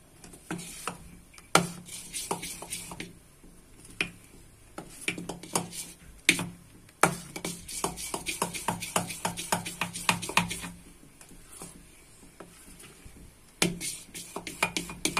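A spoon clinking and scraping against a steel bowl as thick gram-flour batter is stirred fast, in quick runs of strokes several a second.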